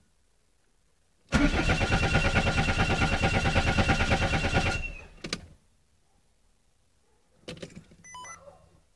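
Car engine cranking on its starter motor for about three and a half seconds, in even rapid pulses over a steady starter whine, without catching, then stopping. A single click follows about a second later, and a few brief quieter sounds come near the end.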